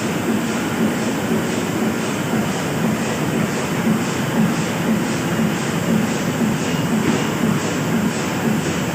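Bobst Novacut 106 ER automatic flatbed die-cutter running, a steady mechanical clatter with an even beat of about two to three strokes a second as it cycles sheets through.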